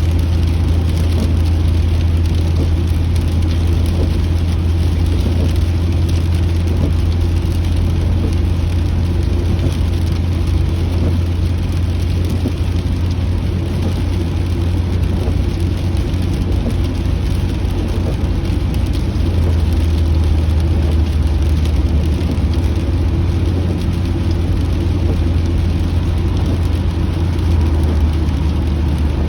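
Steady low road and engine rumble heard from inside a moving car, with rain pattering on the car's body and glass.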